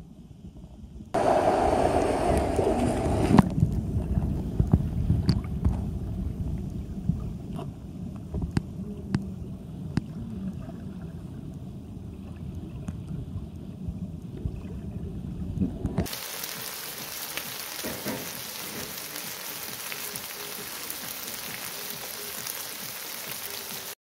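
Stream water heard through a camera held underwater: a muffled rumble of flowing water with scattered clicks and knocks, loudest in the first few seconds. About 16 seconds in it cuts abruptly to a steady, bright hiss.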